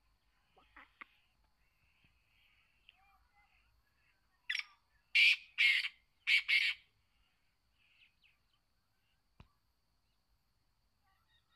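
Young male black francolin calling: a quick run of five loud notes about four and a half seconds in, one short note followed by two close pairs. Faint short chirps come before it.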